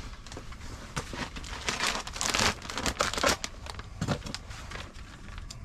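Crinkly packaging rustling and crackling as it is handled, in irregular bursts that are loudest about two and three seconds in.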